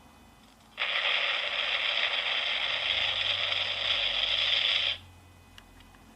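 A sound effect from a small serial-controlled MP3 player module through a little speaker: a steady rushing, hiss-like noise that starts about a second in, lasts about four seconds and cuts off suddenly.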